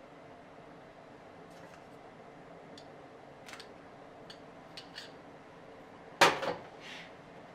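Light clicks of kitchen utensils being handled, then about six seconds in a loud clatter of kitchenware set down, with a short ring, and a smaller knock just after it.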